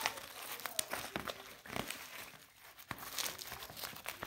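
Thin black plastic parcel wrapping crinkling and crackling as hands pull it open, in irregular crackles with a short lull a little past halfway.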